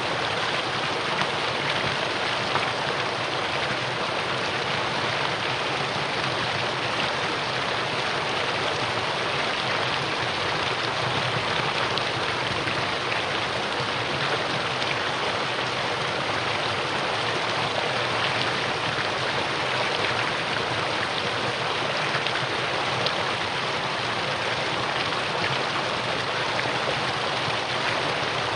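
Mountain valley stream flowing: a steady, unchanging rush of water.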